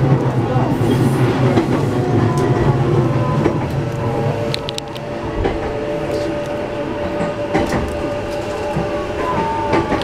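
Running sound heard inside a JR East E233-1000 series electric train car: wheels and track rumbling, with a few sharp rail-joint clicks. The steady whine of its Mitsubishi IGBT-VVVF inverter-driven traction motors runs underneath as the train nears its stop.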